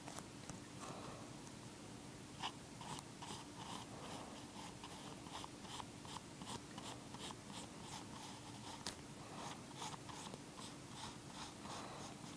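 Pencil scratching on paper in short, quick drawing strokes, two or three a second, over a faint steady hum.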